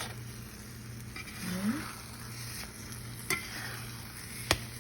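Tomato-and-egg omelette frying in oil in a pan, a steady sizzle, with three sharp clicks of a utensil against the pan.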